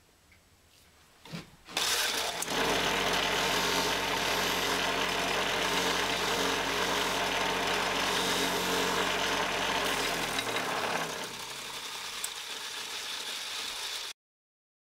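Belt-driven grinding wheel on an old electric motor switched on and running with a steady hum, with a hissing rasp as a small metal tool tip is held against the spinning wheel. About two-thirds of the way through the motor is switched off and the wheel runs on more quietly until the sound cuts off suddenly.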